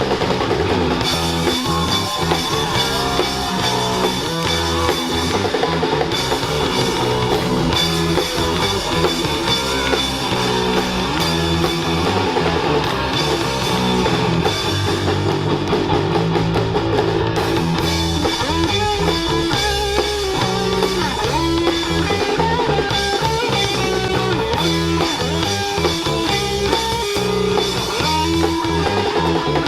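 Live rock band playing: guitar, bass guitar and drum kit driving a steady beat.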